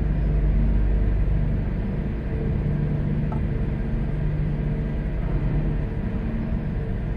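Van engine running at low speed as it creeps along a ferry's car deck: a steady low rumble with a steady hum.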